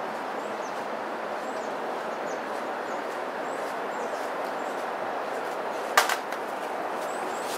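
Harsh noise music from a laptop running on as one steady, dense wash of noise, with a single sharp click about six seconds in.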